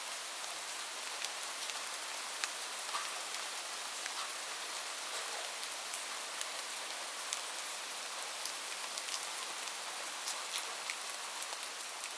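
Light rain falling steadily, a soft even hiss with many small scattered drop ticks.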